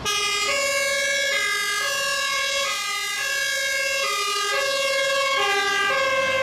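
Two-tone fire engine siren of the German-Austrian Martinshorn type, on a MAN fire truck under way. It switches back and forth between a lower and a higher note, the pair repeating about every second and a half.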